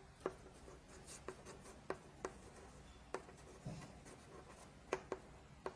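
Writing by hand: a run of faint, irregular taps and short scratches of a pen or chalk stroking a surface, about ten in all.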